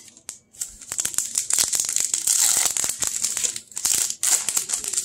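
Plastic wrapper of a 2021 Topps Series 2 baseball card pack crinkling and tearing as it is pulled open by hand: a dense run of crackles and sharp clicks starting about half a second in.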